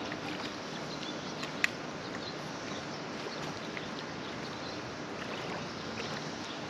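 Steady outdoor rushing noise, with one sharp click about one and a half seconds in.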